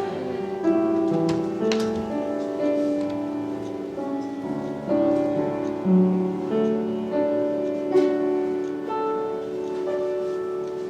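Soft piano playing sustained chords, with notes held and changing every second or so, fading out near the end.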